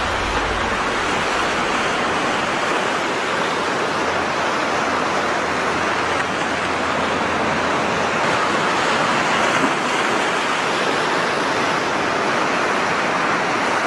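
Ocean surf breaking and washing up onto a sandy beach, a steady rush of water.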